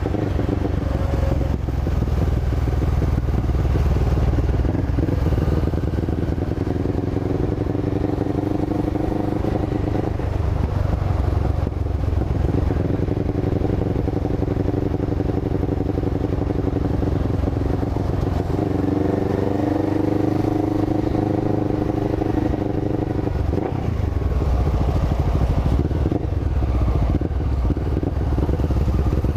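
1998 Honda CB500's parallel-twin engine running on the move, a steady low rumble. For several seconds at a time the engine holds a steady note, then drops off in between, about three times.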